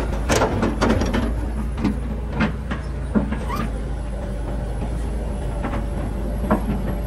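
Kobelko SK200 crawler excavator's diesel engine running steadily while it digs and lifts wet mud, with sharp knocks and clanks from the working bucket and boom, several in the first few seconds and two more near the end.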